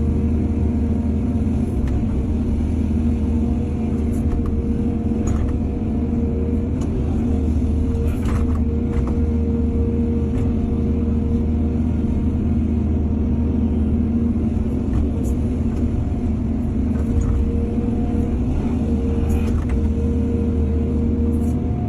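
Excavator's diesel engine running steadily at working revs, with a few sharp knocks scattered through.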